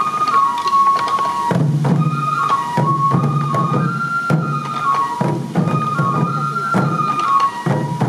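Sansa dance music: a Japanese bamboo transverse flute (fue) plays a stepping melody over the repeated beating of the dancers' waist-slung sansa taiko drums.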